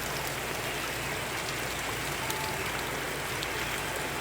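Steady rain falling, an even hiss with a faint low hum underneath.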